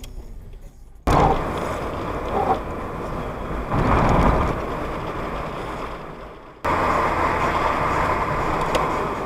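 Road, tyre and engine noise inside a moving car's cabin, picked up by a dashboard camera. It is a steady noise that drops and jumps abruptly back to full level twice, about a second in and again past six seconds, with a brief heavier surge around four seconds.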